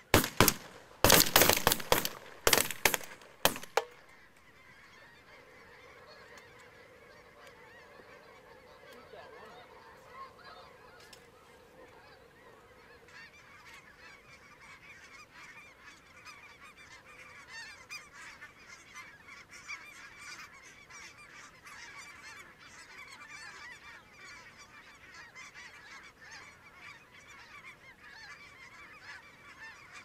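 A rapid volley of shotgun blasts in the first four seconds, then a large flock of snow geese calling overhead in a steady, dense chorus that grows fuller about halfway through.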